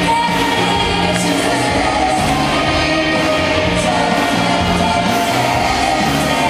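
Live pop band playing with vocals: singers over electric guitar, bass, keyboard and drums, loud and steady throughout.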